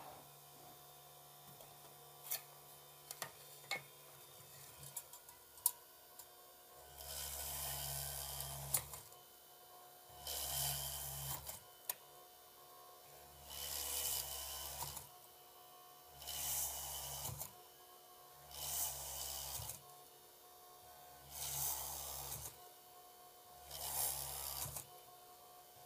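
A small handheld DC-motor drill drilling holes in a copper-clad circuit board, one hole after another. The first few seconds hold only scattered clicks and taps as wires are handled. Then, about seven seconds in, comes a run of seven drilling bursts, each about one and a half to two seconds long, every two and a half to three seconds.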